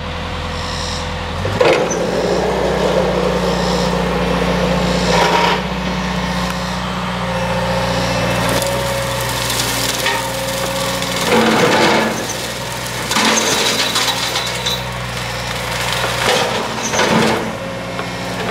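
Excavator-mounted hydraulic brush cutter spinning its three-blade rotor into brush, with the excavator's diesel engine running steadily underneath. Stems and branches crack and splinter as they are cut, in bursts a couple of seconds in, around five seconds, and twice more in the second half.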